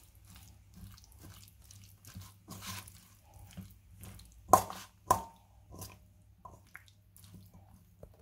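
Metal spoon stirring a chunky salad dressed with sour cream in a stainless steel bowl: soft, irregular wet squelching. About halfway through, the spoon knocks twice against the bowl with a short metallic ring.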